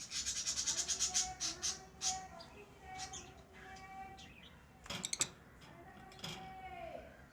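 Pet lovebirds chirping: a rapid run of sharp, high chirps for the first two seconds, then scattered chirps, with a quick burst of them about five seconds in.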